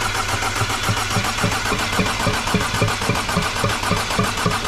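Audi 1.8 TFSI four-cylinder engine turned over on its starter motor without firing, an even cranking pulse of about four to five beats a second. It is being spun to build oil pressure in the freshly rebuilt engine before its first start.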